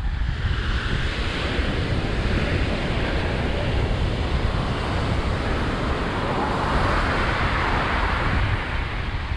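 Ocean surf breaking and washing up the beach, swelling about a second in and again, louder, around seven seconds in, with wind rumbling on the microphone.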